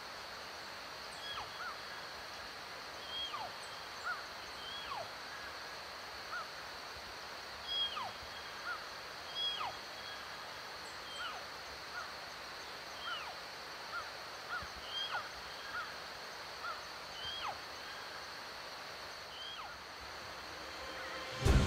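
Outdoor field ambience: a steady high-pitched hum with many short, falling chirp-like animal calls, roughly one every second. Music comes in right at the end.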